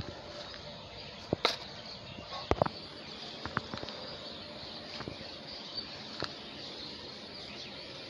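Outdoor ambience with a steady insect hiss, broken by a few sharp clicks and crinkles of handling. The clicks are loudest about a second and a half in and again about two and a half seconds in.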